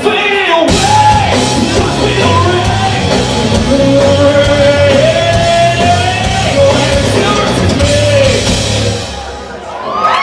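Live rock band playing with a lead singer over drums and bass guitar; the song winds down and the music fades near the end as the song finishes.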